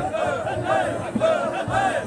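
Crowd of men chanting zikr together, short rhythmic shouted syllables repeated about three times a second without a pause.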